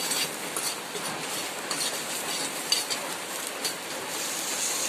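Curry sizzling in a pan as it is stirred, with a utensil scraping against the pan every second or so.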